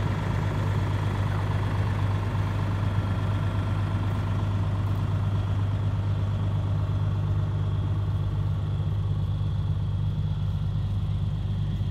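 2001 Pierce Dash pumper fire engine's diesel engine idling with a steady, unchanging low hum.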